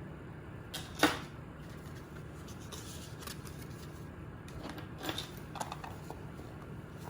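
Hands handling the bag and its packaging: a sharp rustle-click about a second in, then softer scattered rustles and clicks over a low steady background hum.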